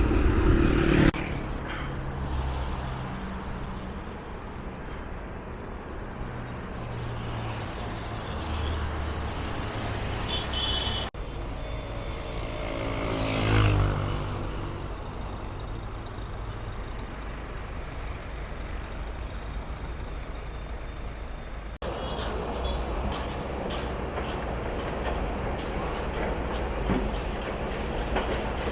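Road traffic running steadily, engines and tyres, with one vehicle passing close and loud about halfway through.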